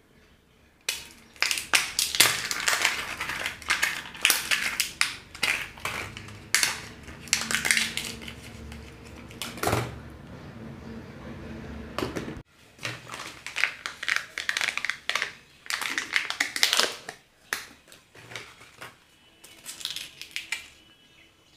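Hands crinkling and tearing wrappers on surprise eggs and candies, with plastic cracking and clicking in quick, irregular bursts. The sound cuts off abruptly about twelve seconds in, then resumes.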